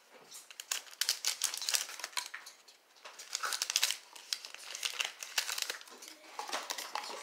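Crinkly plastic packaging being handled and pulled open by hand, crackling in quick, dense runs with a short lull a little before halfway.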